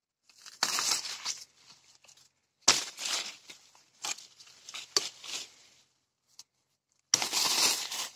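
Homemade knife, made from a plough disc blade, slashing at thin branches and leaves of a small tree: about five short rustling, tearing bursts, several starting with a sharp hit, a second or so apart.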